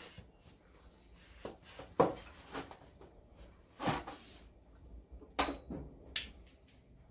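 A series of separate metallic clinks and knocks from hand tools and sockets being picked up and handled, the loudest about two seconds in.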